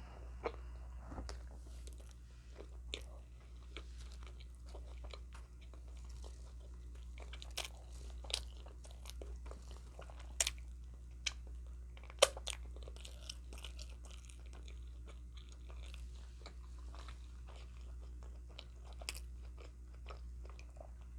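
Eating close to the microphone: chewing, with many scattered sharp crunches and mouth clicks, the loudest about twelve seconds in, over a steady low hum.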